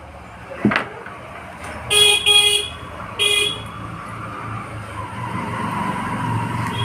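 Vehicle horn tooting three short times, two close together and a third about a second later, with road traffic running and growing louder toward the end.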